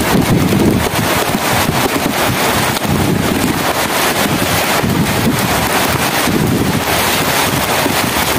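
Heavy rain pouring steadily, a dense even hiss, with low gusty rumbles of wind buffeting the microphone every second or two.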